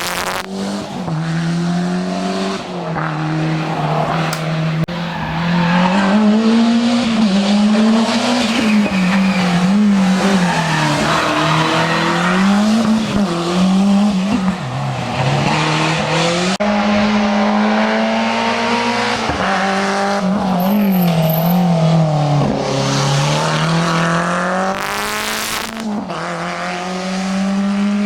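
Historic rally car's engine driven hard on a stage, its pitch rising and falling over and over with throttle and gear changes. A brief rush of noise comes about 25 seconds in.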